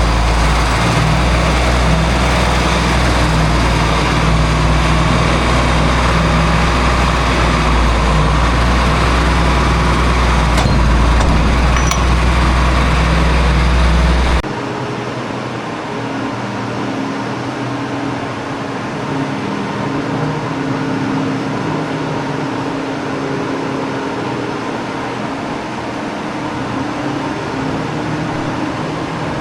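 A heavy engine running steadily with a deep rumble. About halfway through it gives way abruptly to a quieter, steady machine hum.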